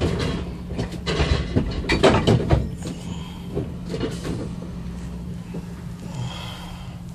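A vehicle engine running steadily at a low hum, with a run of clattering knocks and rattles in the first couple of seconds.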